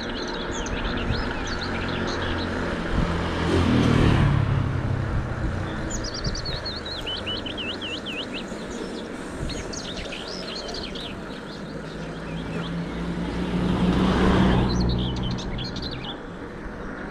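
Two vehicles pass by on a road, each swelling up and fading away, one about four seconds in and another near the end. Birds chirp throughout.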